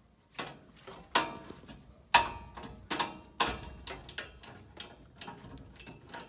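Irregular metal clicks and knocks of a hand tool working at the stuck mounting screw of a furnace's hot-surface igniter, the sharpest about one and two seconds in.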